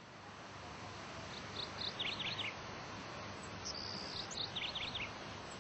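Small birds chirping over a steady background hiss: two quick runs of short, high notes and a single held high whistle between them.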